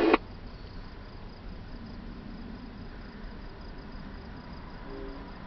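Crickets chirping faintly and steadily over a low background hiss, just after a scanner radio transmission cuts off at the very start.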